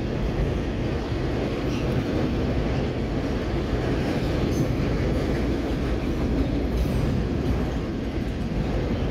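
Autorack freight cars rolling past on the rails: a steady rumble of wheels and car bodies.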